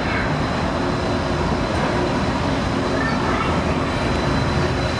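Disneyland monorail train pulling into the station platform: a steady, even running noise of the train, with faint voices in the background.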